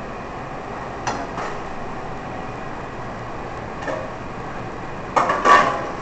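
Kitchen pots, pans and utensils clattering a few times, the loudest cluster near the end, over steady background noise.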